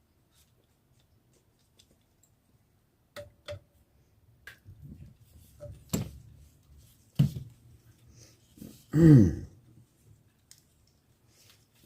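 A few sharp metal clicks and taps as small parts of a Taurus PT92 pistol frame are handled. About nine seconds in comes the loudest sound: a short vocal grunt or hum that falls in pitch.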